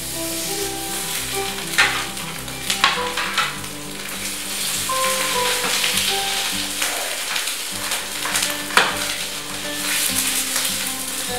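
Salmon fillets sizzling as they pan-fry in hot olive oil, with a few sharp clicks of a spatula against the pan, the loudest about nine seconds in.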